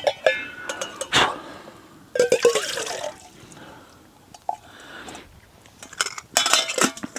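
Water poured into a steel camping mug, with metal clinks of mugs and a lid. One clink rings briefly at the start, and there is more clatter near the end.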